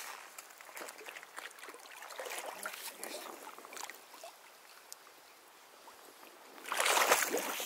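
Crunching steps on river pebbles, a run of irregular sharp clicks, then a quieter stretch. About seven seconds in comes a loud burst of rushing noise, the loudest sound here.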